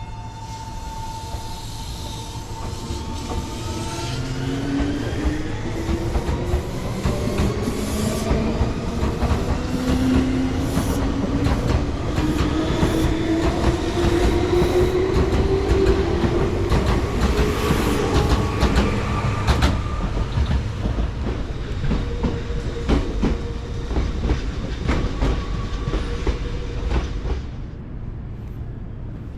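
Electric train pulling away and gathering speed: its traction motors whine upward in pitch while the wheels clack over rail joints, and the noise drops away abruptly near the end.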